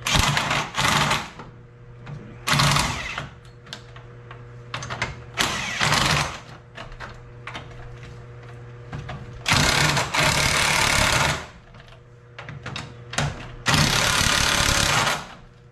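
A power tool run in five short bursts, about a second to a second and a half each, driving wheel lug bolts onto the hub; the two bursts near the end are the longest.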